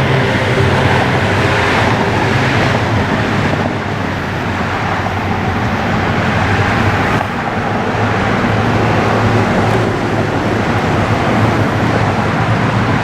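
Road traffic on a busy street: steady engine and tyre noise with a low hum.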